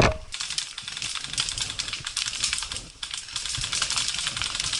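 A dense, irregular run of rapid small clicks and crackles throughout, with soft low thumps underneath.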